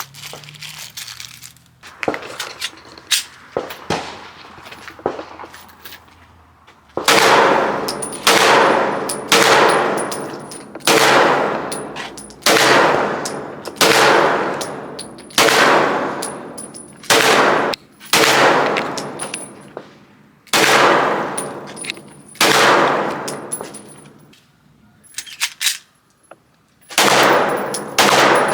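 A run of about a dozen gunshots, roughly one every second and a half, each followed by a long ringing echo. They begin about seven seconds in, after a stretch of faint clicks and knocks.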